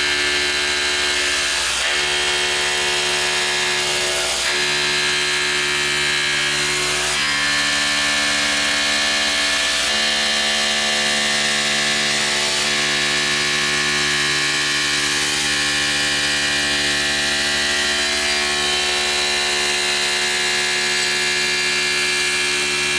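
Tormach PCNC 1100 mill's end mill cutting 6061 aluminum. A steady, loud whine made of several tones whose pitches shift every few seconds as the cutter works around the wheel's webbing.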